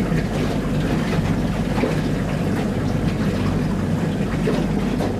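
Outboard motor running steadily with the boat under way, with water rushing along the hull.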